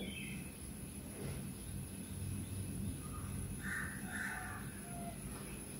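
Quiet room tone with a steady low hum, and a few faint, short harsh sounds about four seconds in.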